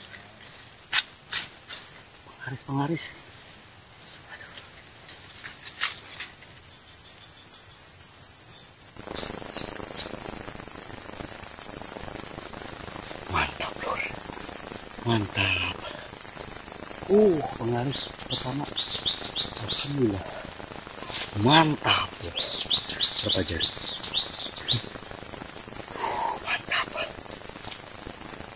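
Steady, high-pitched chorus of insects (crickets or cicadas) shrilling continuously, growing louder about nine seconds in.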